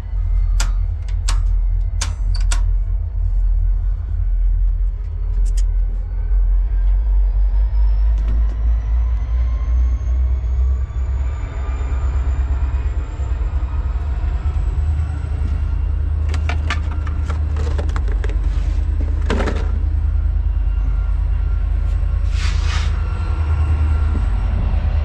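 Wind buffeting the microphone over the rumble of diesel freight locomotives in the distance. A few sharp metallic clicks come near the start, and a thin whine rises slowly in pitch through the middle.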